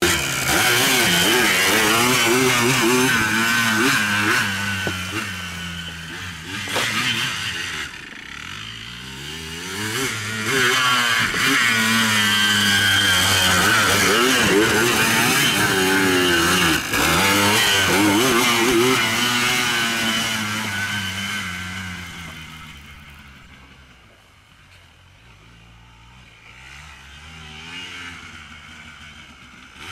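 Quad bike (ATV) engine revving up and down repeatedly as it rides close by. It fades as the quad drives off about 22 seconds in, then grows again near the end.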